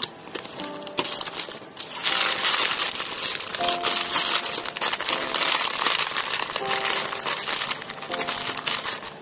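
Clear plastic bags full of small plastic building bricks being handled and crinkling, starting about two seconds in, with faint background music underneath.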